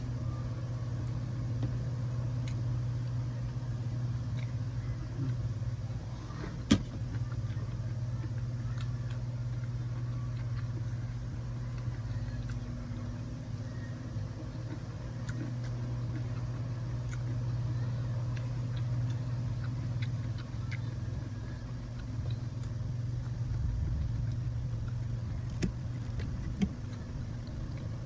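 Steady low hum of a vehicle engine running, with a sharp click about seven seconds in and two more near the end.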